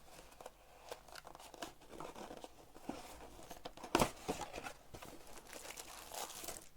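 Rustling, crinkling and tearing of packing material as a cardboard shipping box is unpacked by hand, with small clicks throughout and one sharp knock about four seconds in.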